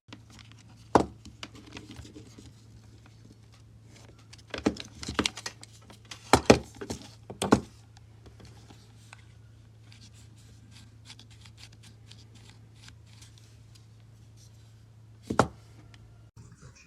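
Close handling noise: a series of sharp clicks and taps, clustered around five to seven seconds in and once more near the end, over a steady low hum.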